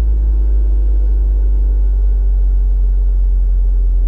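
Mitsubishi Lancer Evo VII's 2.0-litre turbocharged 4G63 four-cylinder idling steadily through a Kakimoto Kai Regu06&R exhaust, a low, even drone heard from inside the cabin.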